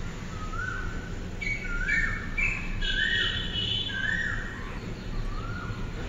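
Birds calling from the trees. One bird repeats a short rising note about once a second, and a second bird adds higher chirps for a couple of seconds in the middle. A steady low background rumble runs underneath.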